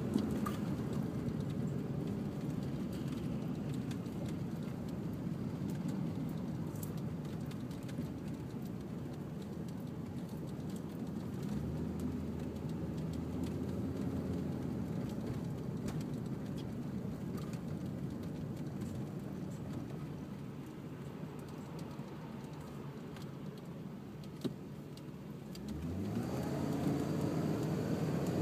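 A motor vehicle's engine running with a steady low rumble. Near the end the engine speeds up and its pitch rises.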